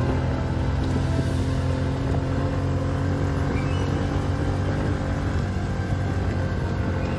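Farm bike engine running hard at a steady high speed, ridden flat out at about 70 km/h, with an even drone.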